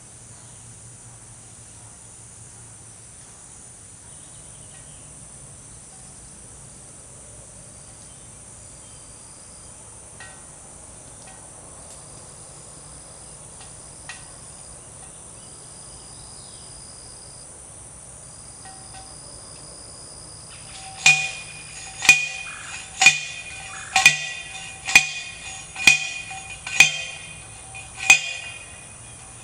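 Eight ringing metallic clangs about a second apart in the last third: a manual post driver pounding a steel T-post into the ground. Insects drone steadily throughout.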